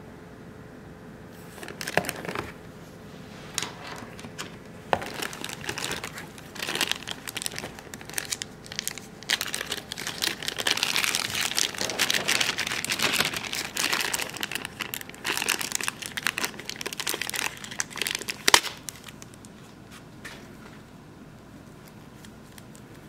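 Clear plastic bag crinkling and rustling as it is handled and pulled off a coiled power cord, loudest in the middle, with one sharp click near the end.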